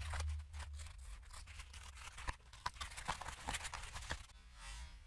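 Foam pipe insulation being pushed and pressed along a plastic condensate pipe by hand: faint rubbing and rustling with irregular small clicks and squeaks, dying away about four seconds in.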